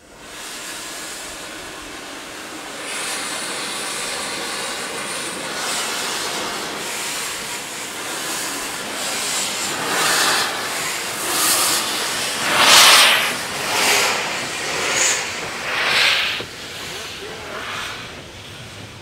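Narrow-gauge steam locomotive hissing steam, then starting its train, with loud puffs of steam about one a second blasting out around the cylinders; the puffs are loudest about two-thirds of the way in and fade as it gets under way.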